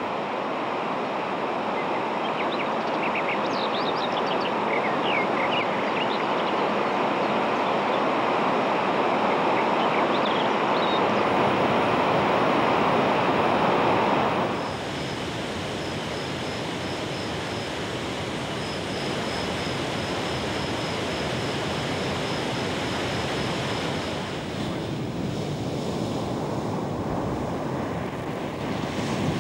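Steady rushing of floodwater over a monsoon-swollen waterfall, with a few short high chirps early on. About halfway through the sound drops abruptly and becomes a lighter steady rush, and near the end it gives way to surf breaking on a beach, with wind.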